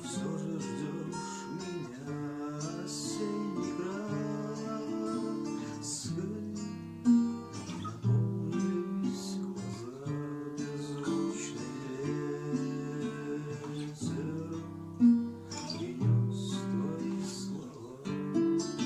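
Acoustic guitar strumming and picking chords, with a pair of sharp accented strums about seven seconds in and again about fifteen seconds in.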